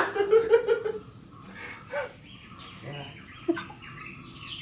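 Birds chirping in short calls, with a sharp knock right at the start followed by a brief pitched call.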